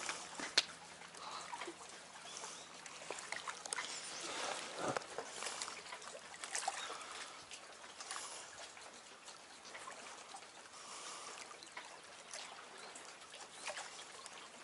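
Small lake waves lapping and trickling against shoreline rocks, an uneven splashy wash with scattered light clicks and taps mixed in.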